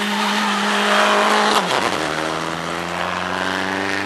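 Rally car engine held at high revs as the car passes close, loudest about a second and a half in, where a short crack is heard and the engine note drops suddenly in pitch, then carries on at the lower pitch.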